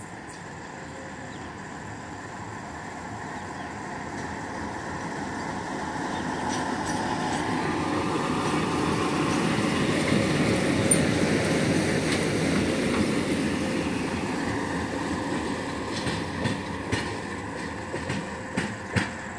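WDM3A diesel-electric locomotive running light, its ALCO turbocharged diesel engine growing louder as it approaches, passing close about ten seconds in, then fading as it draws away. A few sharp wheel clicks on the rails come near the end.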